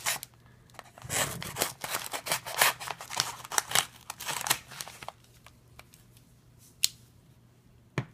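Pocket knife slitting and tearing open a mailing package: a run of scratchy rasps and crinkles starting about a second in and lasting some four seconds, then quieter handling with one sharp click near the end.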